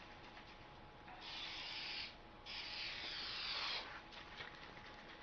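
Aerosol spray can of primer hissing in two bursts, the first a little under a second and the second just over a second long.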